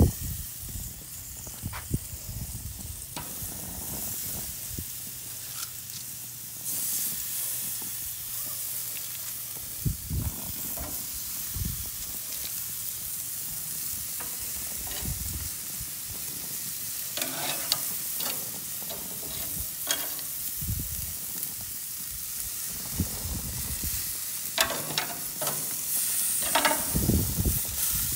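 Raw pork chops sizzling steadily on a hot grill grate as they are laid down one after another, with occasional short metallic clicks of tongs against the grate.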